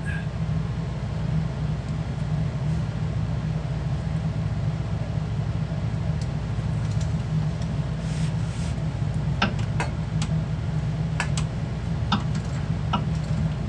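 Steady low drone of a running garage heater, with a few short sharp clicks of hand tools in the second half.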